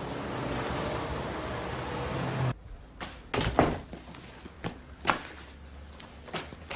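Steady city traffic noise heard from a bus, cut off suddenly about two and a half seconds in; then a quiet room with a handful of short knocks and clatters as clothes and objects are tossed into a suitcase being packed.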